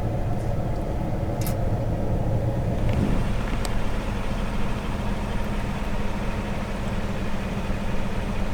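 Vehicle engine idling steadily, with a couple of faint clicks.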